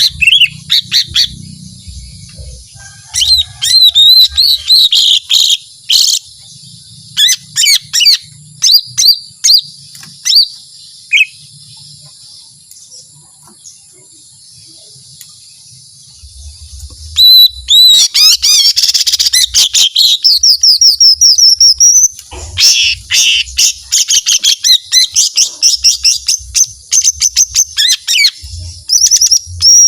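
Cucak ijo mini (a small leafbird) singing: rapid high chirps and whistled notes in bursts, which go quiet for a few seconds around the middle. Then a long, fast, almost unbroken run of notes follows, the long 'shooting' song prized by keepers.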